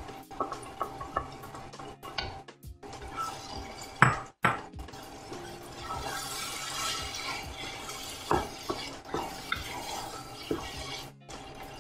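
A wooden spatula scraping tomato puree out of a bowl into a non-stick pot of frying vegetables, then stirring and scraping against the pot, with irregular clicks and scrapes. A loud sharp knock comes about four seconds in.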